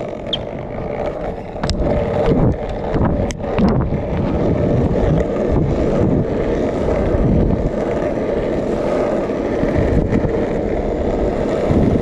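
Longboard wheels rolling over smooth fresh asphalt, a steady hum that gets louder over the first two seconds, with wind buffeting the microphone. A few sharp clicks come in the first four seconds.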